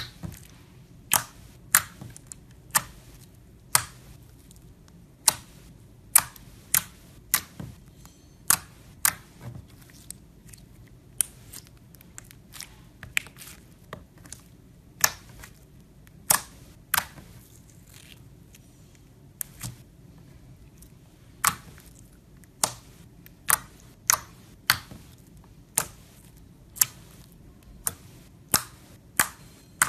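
Clear glitter slime being squeezed and poked by fingers, giving sharp clicks and pops at irregular intervals, roughly one a second.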